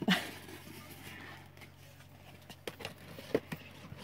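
Scattered small clicks and taps of a model car's plastic packaging being handled and opened, with a sharper knock at the start, over a faint steady low hum.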